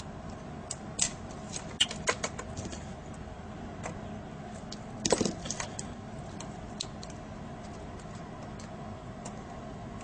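Scattered light clicks and metallic clinks of hands handling a laptop screen's small circuit board and screws, the loudest cluster about five seconds in, over a faint steady hum.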